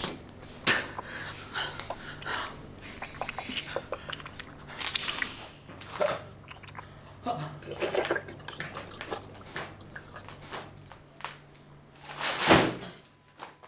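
Wet, squelching flesh and gore sounds with irregular sharp clicks and strained, breathy vocal noises, over a steady low hum that stops near the end. A loud harsh rush comes near the end, and then the sound drops away.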